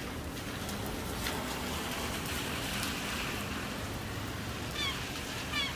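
Gulls giving two short calls about a second apart near the end, over a steady outdoor rush of noise.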